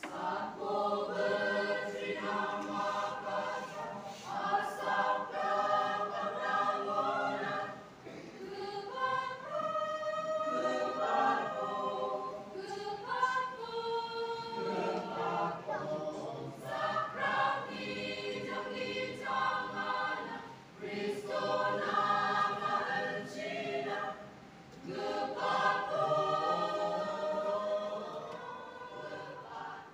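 Mixed church choir of young men and women singing together, in phrases broken by a few short pauses.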